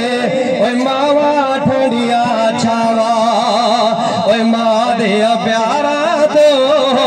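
A man singing Punjabi devotional verse into a microphone, amplified through a loudspeaker, in long wavering, ornamented notes.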